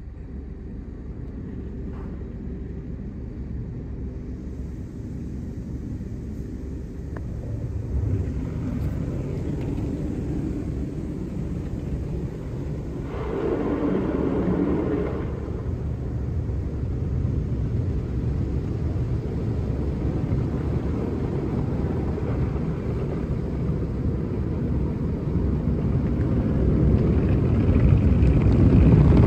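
Automatic tunnel car wash heard from inside the car: water and coloured lava foam pre-soak pouring onto the windshield over a steady rumble, with a louder rush about halfway through. Brushes begin sweeping the glass near the end as the noise grows louder.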